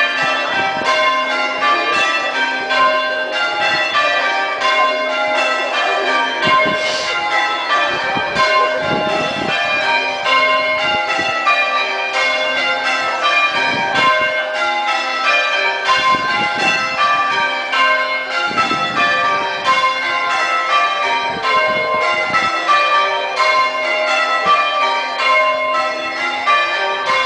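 A ring of church bells change ringing, struck one after another in repeating descending rows, here ringing call changes.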